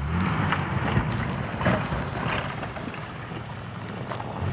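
A vehicle engine running at low revs under gusting wind on the microphone.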